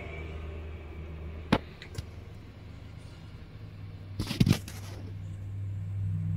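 A dog growling quietly in her sleep, a low steady rumble that grows stronger near the end, with a few sharp clicks and knocks, the loudest cluster about four seconds in.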